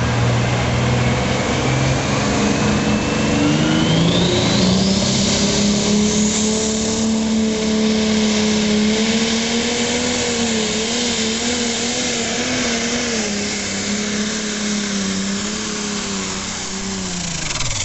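Smoke-belching diesel pulling tractor, a John Deere, running flat out under load on a pull: its engine note climbs over the first few seconds with a high whine rising above it, holds high and wavers, then falls away just before the end.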